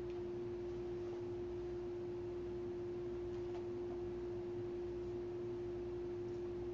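A steady single tone that holds one pitch and one level without wavering, over faint room noise.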